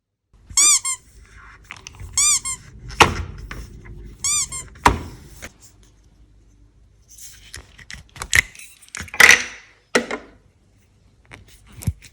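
Clear slime being handled and mixed by hand: three short squeaks, each rising and falling in pitch, in the first half, among sharp clicks and thuds, then a cluster of louder wet slaps near the end.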